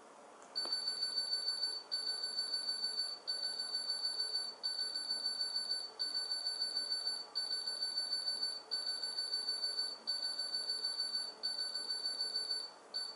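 High-pitched electronic tone from a home-built transistorised serial computer (a silicon copy of the 1967 Wireless World design) running a multiplication by repeated addition. It comes in nine bursts of about a second and a quarter each, one for each add cycle, with a fast flutter inside each burst.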